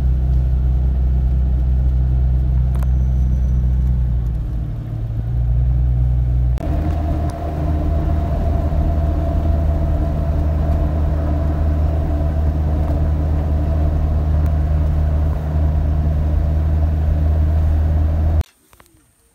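Car engine and road noise heard from inside the cabin while driving at a steady pace, a loud, even low hum. The sound changes abruptly about six and a half seconds in and cuts off near the end.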